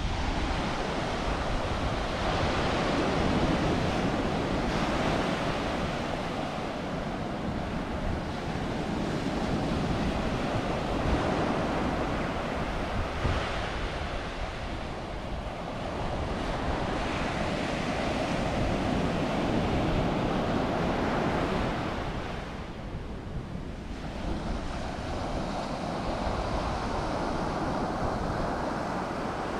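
Ocean surf breaking and washing up a sand beach in choppy water, the rush swelling and easing with each wave, with wind buffeting the microphone. The surf eases briefly about three quarters of the way through.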